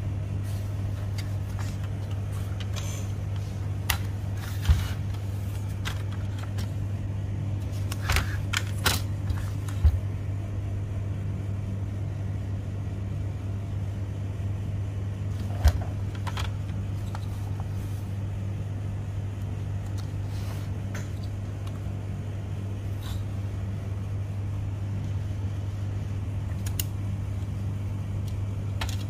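Steady low hum throughout, with a few sharp clicks and clacks of hands handling a Toshiba e-Studio photocopier fuser unit's plastic housing and heat roller, bunched around a few seconds in, near the middle of the first half, and again about halfway through.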